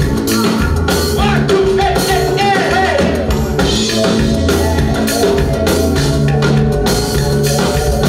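Church band music for a Swahili hymn: a drum kit keeps a steady beat under a bass line, with singing over it.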